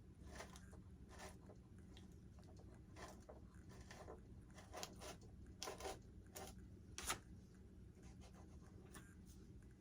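Faint, irregular scratching and crunching of a drill bit being turned through a foam model-aircraft fuselage, with a few slightly louder scrapes a little past halfway.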